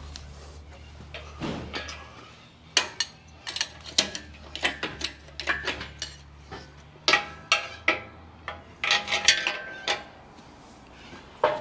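Metal tools and hardware clinking and knocking against an engine on an engine stand: about twenty sharp clinks in quick, irregular succession, over a faint low hum in the first half.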